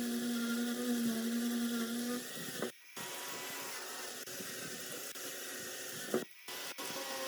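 A small electric power tool's motor running with a steady hum, which stops about two seconds in. A fainter, noisier whirring follows, broken by two abrupt cuts.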